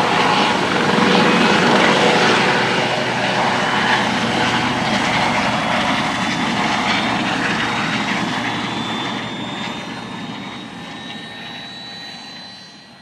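Airbus AS365 Dauphin twin-turbine helicopter climbing away after takeoff. Rotor and turbine noise with a high whine, fading steadily over the last few seconds as it departs.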